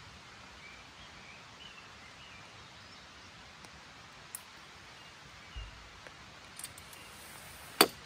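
Quiet forest ambience: a steady hiss with faint bird chirps, broken by a few small knocks and clicks as a tent stake is worked into the ground at the tent's corner. A single sharp click near the end is the loudest sound.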